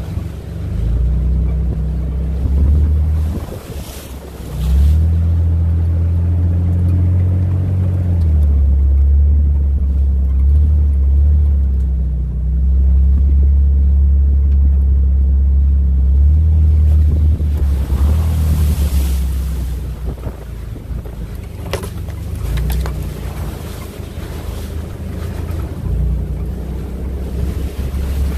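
Low motor rumble with wind noise on the microphone, dipping briefly about four seconds in.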